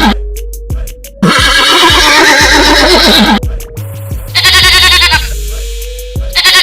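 Recorded farm-animal calls played over upbeat background music with a steady bass line. A long wavering call lasts about two seconds, then a shorter, evenly quavering bleat-like call comes about halfway through.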